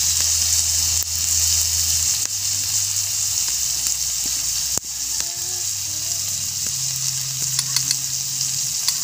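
Sago palm weevil grubs (abatod) frying in a pan: a steady sizzle with a few sharp pops.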